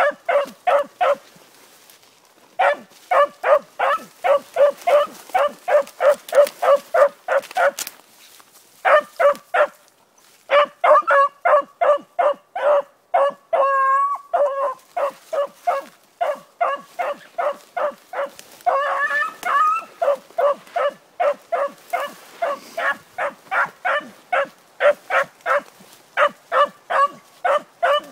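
Beagle baying on a rabbit's track: rapid short chop barks, about three a second, broken by a couple of brief pauses, with a longer drawn-out note about halfway through.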